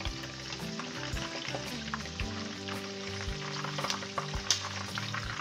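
Batter-coated chicken wings frying in hot oil in a wok, sizzling and crackling steadily, with tongs clicking against the pan as the wings are turned over. Soft background music plays underneath.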